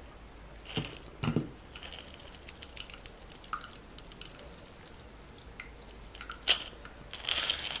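Shaken cocktail dripping from an upturned mason jar shaker through its metal strainer lid into a glass over ice, with faint scattered ticks. Two sharp knocks come a little after a second in and another near the end.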